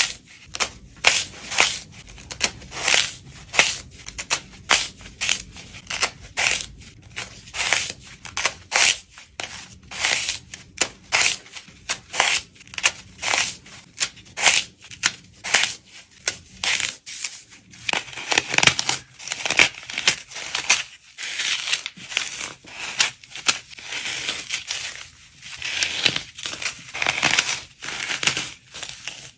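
Dry floral foam broken apart and crushed by hand: a steady run of crisp, powdery crunches and snaps, a couple a second. In the second half they come in thicker, grinding clusters.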